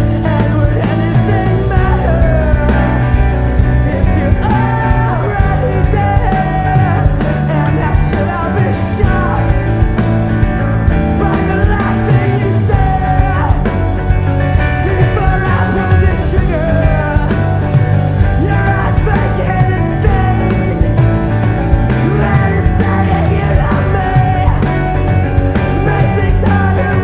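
Rock song playing, with a singing voice over a band and a steady beat.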